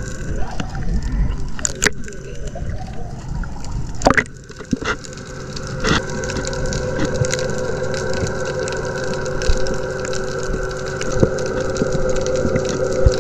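Underwater sound heard through a GoPro's waterproof housing: a steady droning hum of several fixed tones over a wash of noise, with a few sharp clicks and knocks in the first half.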